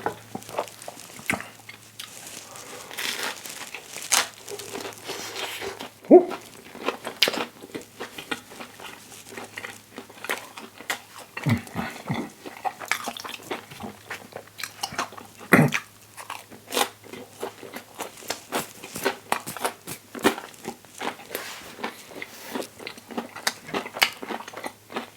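Close-miked eating of a toasted English-muffin breakfast sandwich with vegan sausage and cheese: bites and chewing with many irregular crunchy clicks from the buttered, toasted muffin, over a faint steady low hum.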